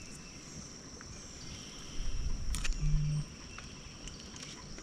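Quiet swamp background with a steady high insect drone. About two seconds in comes a short stretch of low bumps and a few light clicks from handling gear in the boat.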